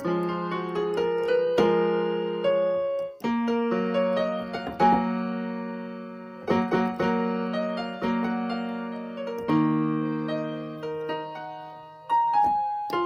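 Background piano music: slow, sustained chords, each struck and left to fade.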